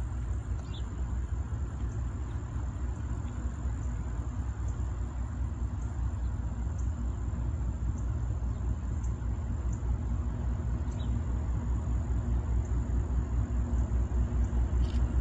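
CSX diesel freight locomotive approaching slowly, its engine a low pulsing rumble that grows steadily louder.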